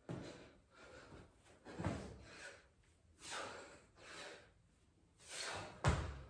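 A man's heavy, gasping breaths during burpees, with thuds of hands and feet landing on a stone floor; the two heaviest thumps come about two seconds in and near the end.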